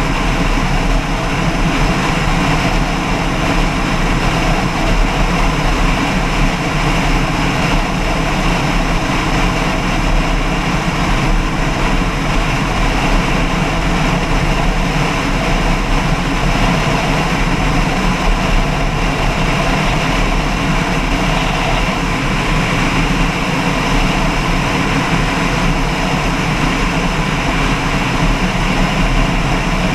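An engine running steadily at constant speed, a loud unbroken hum with no changes.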